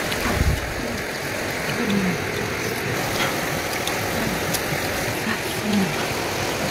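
Steady rush of a shallow river flowing over rocks, with a person chewing food and faint crunches and clicks over it.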